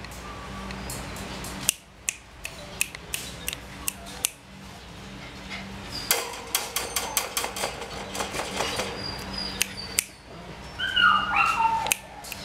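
Puppy giving a short high whine that steps down in pitch about eleven seconds in, among scattered sharp clicks and taps, over a steady low hum.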